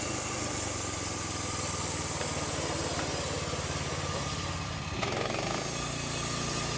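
Small engine running steadily, its tone changing abruptly about five seconds in.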